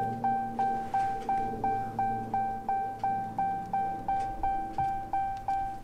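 Dodge Charger's dashboard warning chime dinging over and over, a single clear tone about three times a second, set off with the ignition on and the driver's door open.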